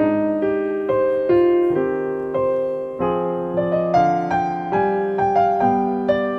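Background piano music: notes and chords struck about every half second, each one fading before the next.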